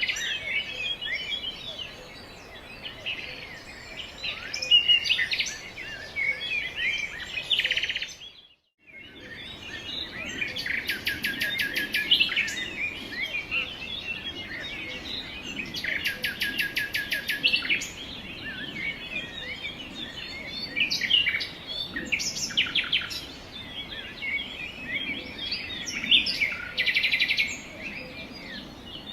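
Many songbirds chirping and calling over one another, with several fast, even trills of rapid repeated notes. The sound breaks off into silence for under a second about eight seconds in, then resumes.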